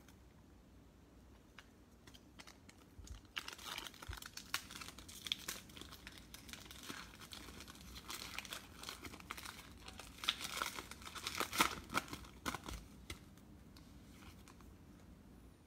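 Foil wrapper of a Chronicles football trading-card pack being crinkled and torn open by hand. The crackling starts about three seconds in, is loudest near the tear about two-thirds of the way through, and stops a few seconds before the end.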